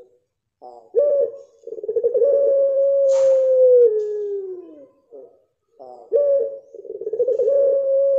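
Puter pelung (Barbary dove) giving its long, drawn-out 'crying' coo twice. Each call opens with a few short notes, then holds one pitch for about three seconds. The first call steps down and slides lower before breaking off about five seconds in; the second is still held at the end.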